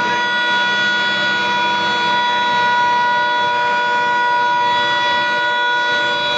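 A loud, steady, siren-like blare: several pitches held together, neither rising nor falling, unbroken throughout.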